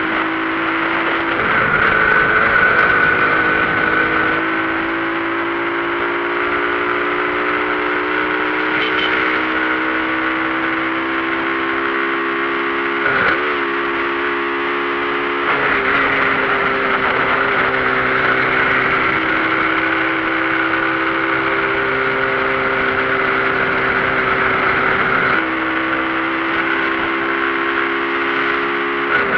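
Motorcycle engine and exhaust running while riding, a steady hum whose pitch shifts in small steps with engine speed, with the exhaust bolt loose.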